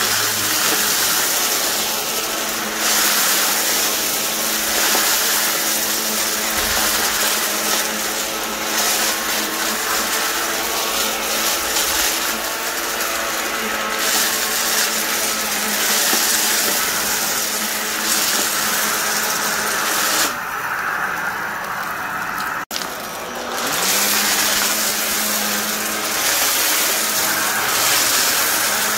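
Vacuum cleaner running steadily, a motor whine with a strong rush of air. About two-thirds of the way in, the airflow hiss drops away for a few seconds with a sharp click, then the motor tone comes back up and the hiss returns.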